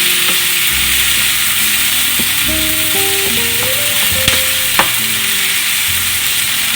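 Onion-tomato masala with ginger-garlic paste and spices sizzling in hot oil in a pan as it is fried and stirred to bring out the aroma, with two sharp knocks of the stirring spoon against the pan a little past the middle.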